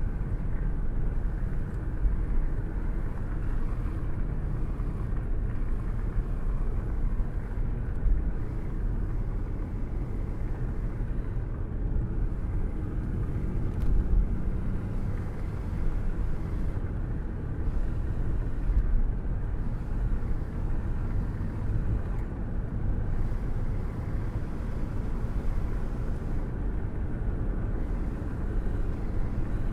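Thunderstorm with rain: a steady, dull low rumbling noise with little hiss and no sharp thunderclaps.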